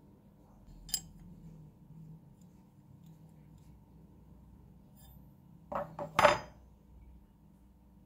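Steel 22 mm open-end wrench and brass nut clinking as they are handled: one sharp click about a second in, then three quick clinks about three-quarters of the way through, the last the loudest.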